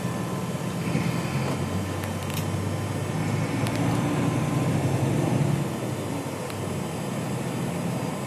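Road vehicle cabin noise while driving: a steady engine and road rumble that swells between about three and five seconds in, then eases.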